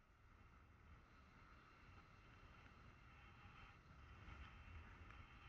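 Faint wind buffeting the microphone of a camera on a tandem paraglider in flight: a low, irregular rumble that grows a little stronger about four seconds in.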